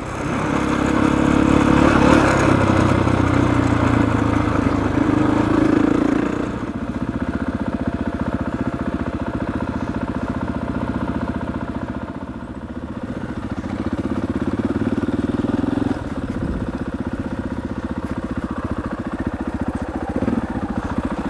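Enduro dirt bike engine running as the bike rides at low speed over rough dirt track. It is at its loudest for the first several seconds, then eases off, builds again and drops suddenly near the end of the ride.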